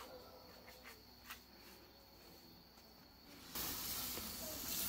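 Dried maize kernels hissing and rustling as they are pushed and spread by hand over a cloth, starting about three and a half seconds in after a nearly quiet stretch with a few faint ticks.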